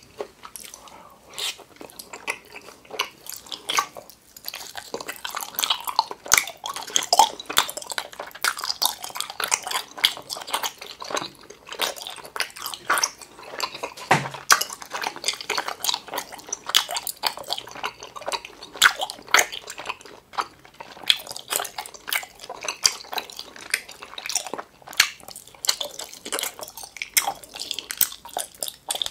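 Close-miked mouth sounds of biting and chewing a giant gummy jelly octopus tentacle: a dense run of small sharp clicks as the jelly is worked in the mouth.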